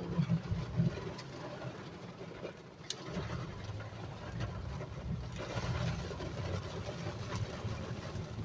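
Car driving through heavy rain: a low road and engine rumble with the hiss of rain on the car, a few sharp ticks, the hiss growing louder about five seconds in.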